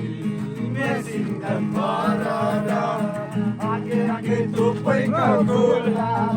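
Music: a Nepali song, a voice singing over guitar accompaniment.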